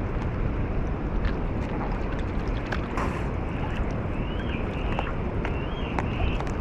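Wind rumbling on the microphone over water sloshing, with scattered small clicks. In the second half come several short, high calls that rise and fall.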